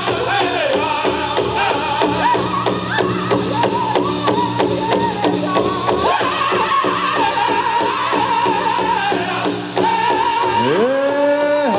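Powwow drum group singing a chicken dance contest song: several voices singing together in a high pitch over a steady, fast big-drum beat. Near the end the drum drops out and one voice slides up and holds a long high note.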